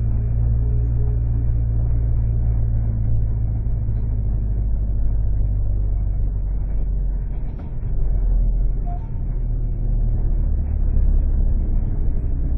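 Engine and road noise heard from inside a moving bus: a steady low engine drone with tyre and road rumble, dipping briefly about eight seconds in.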